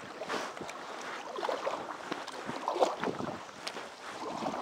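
Canoe paddle strokes splashing in lake water, with wind buffeting the microphone and a couple of sharp knocks, the clearest about three seconds in.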